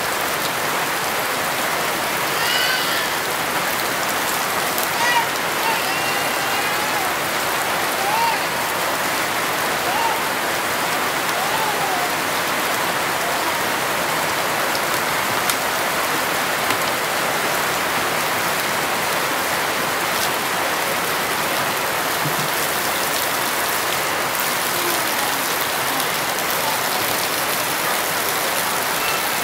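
Outdoor shower: a strong stream of water pouring and splashing steadily onto a person and the ground.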